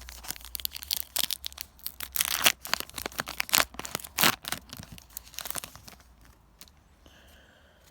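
Foil booster pack wrapper of Yu-Gi-Oh trading cards being torn open and crinkled: a dense run of sharp rips and crackles lasting about six seconds, loudest about two and a half and four seconds in, then fading out.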